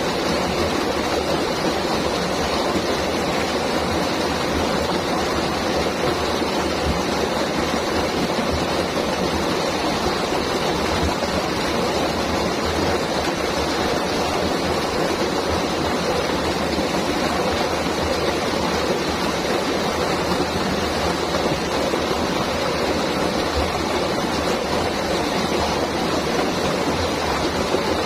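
River water flowing steadily, a constant rushing wash with no breaks or changes.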